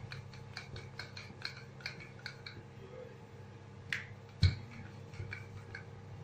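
Wooden rolling pin rolling out dough on a stone countertop: a run of light, even clicks about two or three a second, then a knock and a sharper thump about four and a half seconds in.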